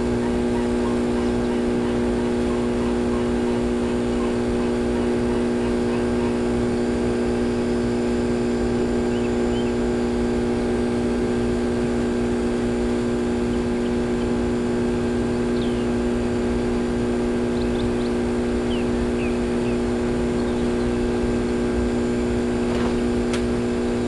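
Steady motor hum with a strong low tone and evenly spaced overtones, unchanging throughout. A few faint, short high chirps sound over it in the second half.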